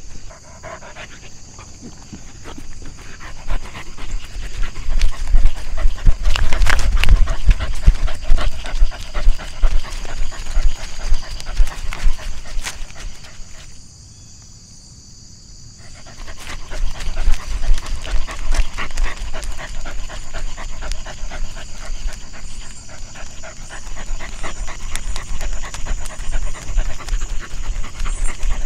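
A dog panting rapidly and close, breaking off for a couple of seconds about halfway through before starting again.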